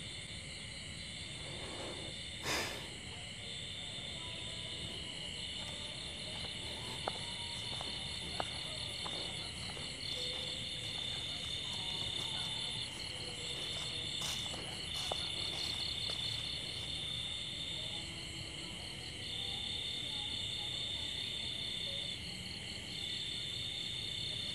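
Night insects trilling steadily: one sings in long trills with short breaks over a continuous high-pitched drone of others. A brief louder noise about two and a half seconds in, and a few faint clicks.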